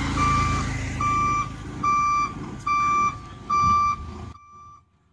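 Lorry's reversing alarm beeping steadily, about one beep a second, over the low running of the lorry's engine as it backs up. Just over four seconds in the engine sound drops away sharply and the beeps go on fainter.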